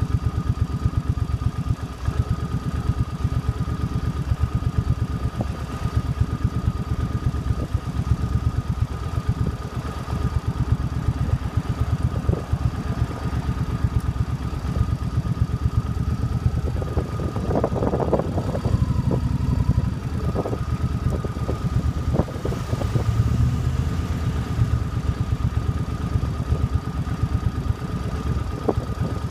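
Suzuki Boulevard C50's 805cc V-twin idling steadily, with an even, rapid pulse of firing strokes.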